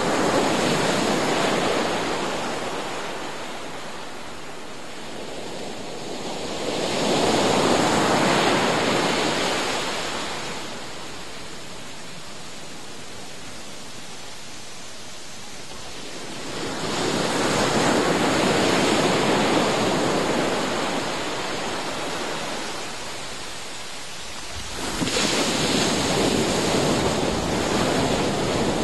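Ocean surf breaking and washing up a sandy beach. The rush of water swells and fades in four surges, about nine seconds apart.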